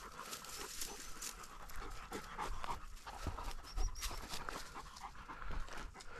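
Hunting dog panting rapidly while it searches through dry grass for game birds, with rustling and scuffing steps on dry ground.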